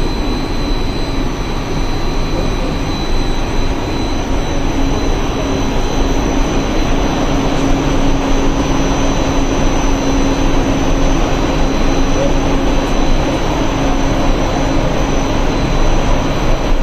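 XPE foam production line running: a loud, steady machinery hum and whir with a few thin steady whining tones. The low hum grows stronger about four to five seconds in.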